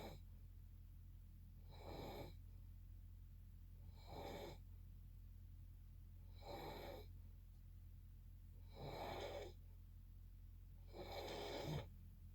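Sleeper snoring: five short snores, about one every two and a half seconds, over a steady low hum.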